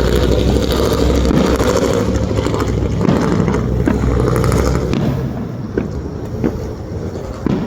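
Fireworks going off in a dense barrage: a continuous rumble of shell bursts with crackling, thinning out about five seconds in to scattered single bangs.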